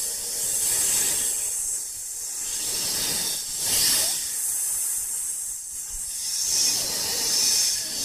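Snake hissing: a run of long hisses that swell and fade several times.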